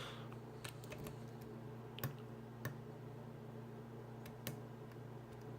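Light, scattered clicks of a lock pick and tension wrench working the pin stack of an American Lock Series 2000 puck lock, about half a dozen spread unevenly, over a steady low hum.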